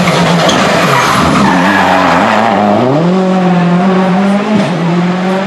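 Rally car engine at full throttle, rising in pitch as the car accelerates about three seconds in, with a brief drop in revs near the end, like a gear change.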